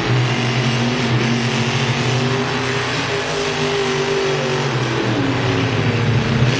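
Grave Digger monster truck's supercharged V8 running hard at high revs, the engine pitch dipping and rising again about two-thirds of the way through.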